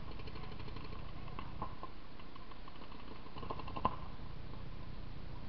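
Paintball markers firing: scattered faint pops, then one sharper, louder shot close by about four seconds in, over steady background noise.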